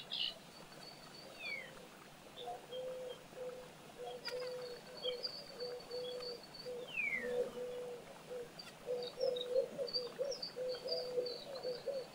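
Birdsong: high, thin calls and trills with a couple of falling whistles, over a low note repeated many times in a row.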